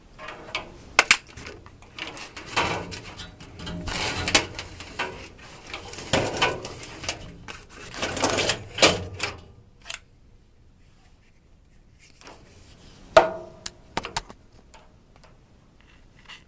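A washable furnace filter being handled and pushed into the furnace's filter slot: irregular clattering, rustling and scraping with sharp clicks for most of the first ten seconds, then a pause and a few more clicks.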